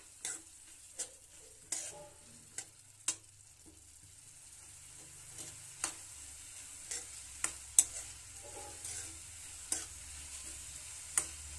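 Steel spoon stirring and scraping vegetables and spices in a steel kadai, with irregular sharp clinks of metal on metal. A faint sizzle of frying runs underneath.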